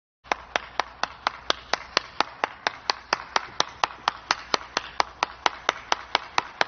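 One person clapping steadily, about four claps a second.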